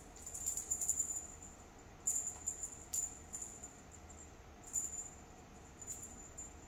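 A small bell jingling in short shakes, five or so times, as a feather wand cat toy is swung about.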